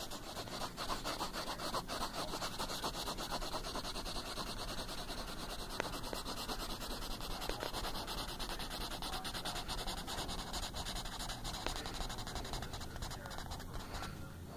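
Pencil lead scribbling quickly back and forth on paper to shade in a dark area, a fast, even scratching that stops near the end.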